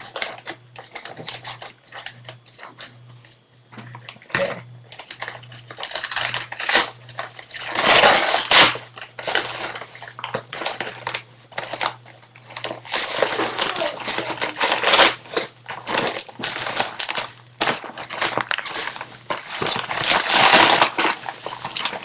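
Plastic packaging and bubble wrap crinkling and rustling in irregular bursts as a mailed package is opened by hand and its contents pulled out. It is loudest about a third of the way in and again near the end.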